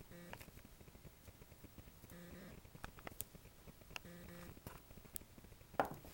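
A cat sneezing once, a short sharp burst near the end, among faint taps and clicks and a short pitched sound that comes about every two seconds.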